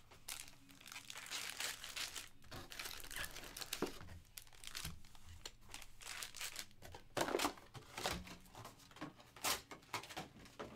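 Foil wrappers of Topps baseball card packs crinkling and rustling as a stack of packs is handled and pulled from a jumbo box. The crinkling is irregular, with louder patches about seven and nine and a half seconds in.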